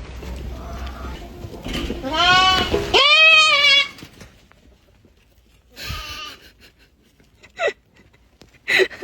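Goat bleating: two loud, wavering bleats back to back, followed by a few short, fainter calls.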